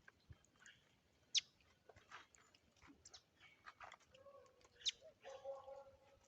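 Wild birds calling at a feeding spot: sharp, high chirps that drop steeply in pitch, two of them louder, among fainter scattered chirps. A lower held note comes in near the end.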